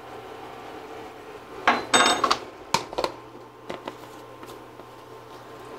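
A metal spoon and dishes clattering around a skillet: a quick burst of clinks about two seconds in, then a few single light knocks as utensils are tapped and set down, over a steady low hum.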